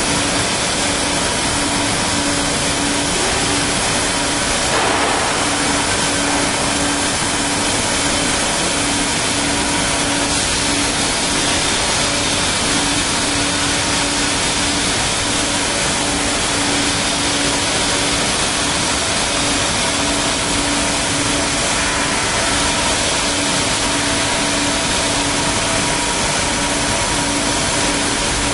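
Thermal cutting torch on a Kaltenbach WBZ 1500 plate profiling machine cutting through steel plate: a steady, loud hiss with a constant hum underneath.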